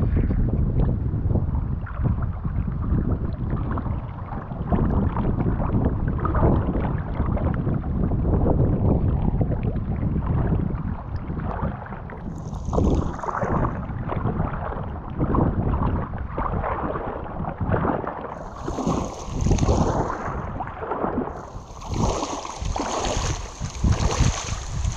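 Water sloshing and splashing around rubber waders with each step of a person wading through lake water, with wind buffeting the microphone.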